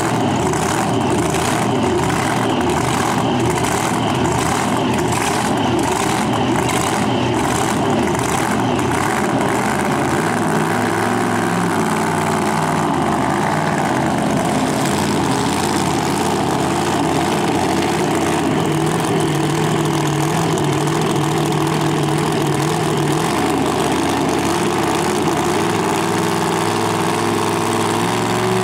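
Supercharged drag-race engine of a Chevrolet Nova idling loudly and steadily. About a third of the way in, its note turns smoother and more evenly pitched.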